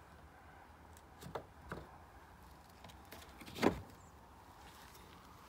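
Metal sockets clinking against each other and the plastic case as a socket is picked out of a socket set: three short clinks, the loudest about two-thirds of the way through.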